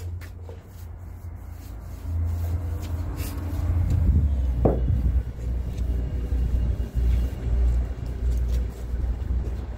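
A loud low rumble that swells and fades unevenly, with a short falling squeak about halfway through.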